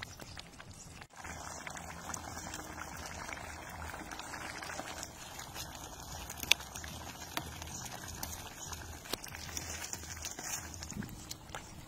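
Egg and vegetable curry simmering in a pan: a steady bubbling with crackly pops, and a few sharp clicks, the loudest about six and a half seconds in.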